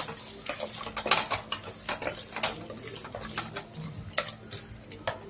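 A spoon stirring chicken pieces in a pressure cooker, with irregular scrapes and knocks against the pot over a low sizzle of the chicken cooking in oil and its own released juices.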